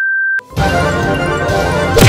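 A steady, high test-card beep over the colour bars that cuts off about half a second in, followed by background music.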